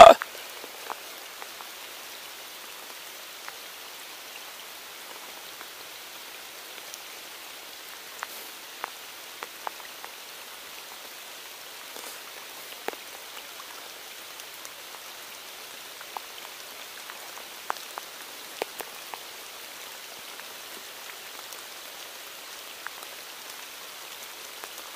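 Steady rain falling on a river surface and the grass around it, a soft even hiss with scattered sharper drop ticks.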